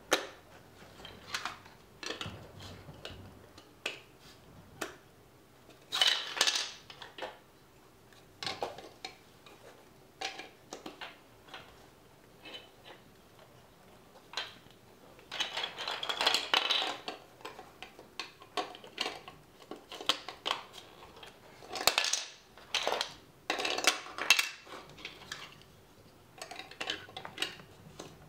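Plastic LEGO Duplo bricks clicking, knocking and clattering on a wooden floor as they are picked from a pile and pressed together, with a few louder spells of rattling among scattered clicks.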